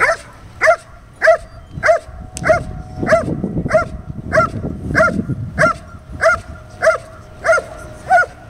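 A protection dog barking in an even, steady rhythm, about fourteen sharp barks at a little under two a second, typical of a dog holding and guarding a decoy.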